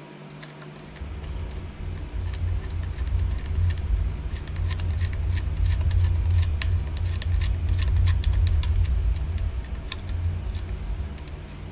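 Irregular light metallic clicks and taps as bolts are fitted by hand into the aluminium plate of a plasma-table torch-holder bracket, over a low rumble.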